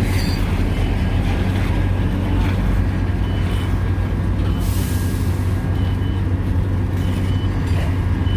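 Heavy diesel engine of asphalt-paving machinery running steadily with a deep hum. A backup alarm beeps at intervals, and a burst of air hiss sounds for about a second midway through.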